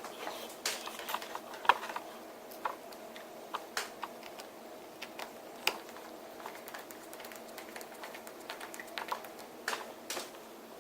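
Scattered small clicks and taps of hand tools and phone parts being handled and fitted, at uneven intervals, over a steady faint hum.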